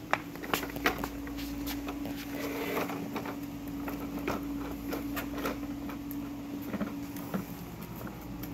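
Plastic toy tricycle wheels rolling over concrete, with irregular clicks and clatters over a steady low hum.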